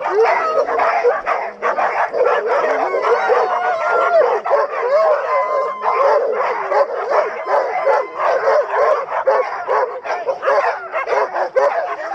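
A crowd of harnessed canicross dogs barking, yelping and whining all at once in a dense, unbroken din, as the dogs strain eagerly to run.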